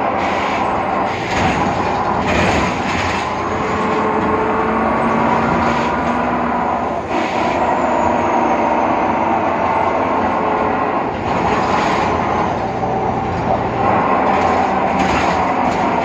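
Ride noise inside a BredaMenariniBus Avancity Plus city bus under way, with a steady whine from the worn rear differential over the running of the Deutz diesel and ZF automatic gearbox, and occasional knocks and rattles from the body.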